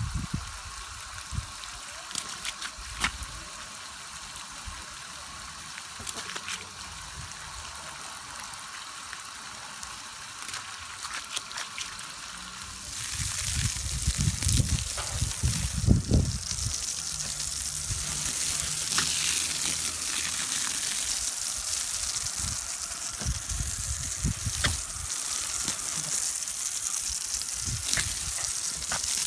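Water spraying from a garden hose onto grass: a steady hissing spray that gets much louder about halfway through, with low bumps and rumbles alongside it.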